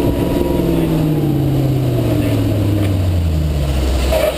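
Volvo Penta V8-270-C-A 5.0-litre V8 sterndrive engine running under way, its pitch falling steadily over about three seconds as the engine slows, over the steady rush of water along the hull.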